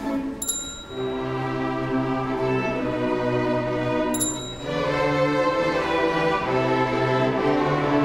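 String orchestra of violins, violas and cellos playing held, bowed chords that change every few seconds. A short, bright, high ding sounds twice over the strings, about half a second in and again about four seconds in.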